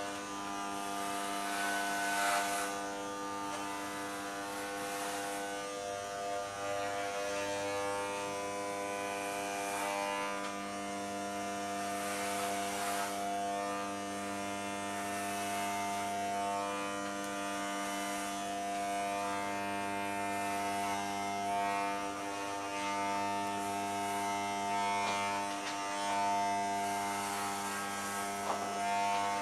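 Corded electric hair clippers buzzing steadily as they shave a man's head. The buzz gets rougher in several short stretches as the blades pass through hair.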